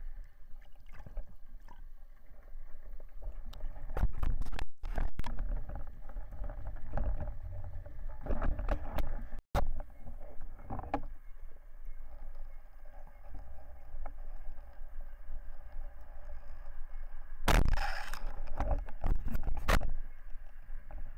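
Underwater sound picked up by a spearfisher's camera: a low rush of water against the housing with a faint steady hum, broken by scattered knocks and louder rushing bursts, the loudest near the end.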